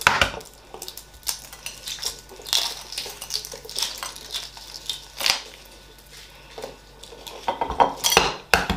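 Hard-boiled eggshells cracking and crackling as they are peeled by hand, with irregular sharp clicks and knocks of eggs against ceramic plates.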